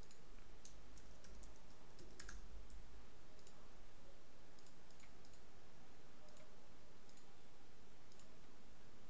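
Faint, scattered computer mouse clicks and keyboard keystrokes over a steady background hiss.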